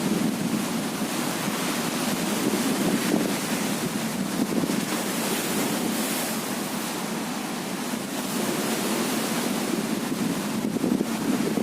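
Strong wind buffeting the microphone: a continuous rushing noise that swells and eases with the gusts.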